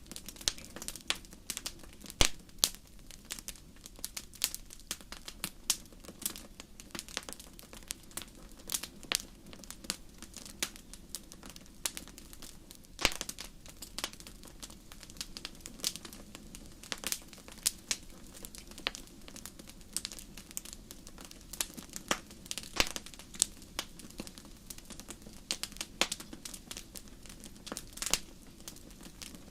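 Wood fire burning in a fireplace: a steady low rush of flame with irregular crackles and pops from the burning logs, a few sharper snaps standing out, the loudest about two seconds in and about halfway through.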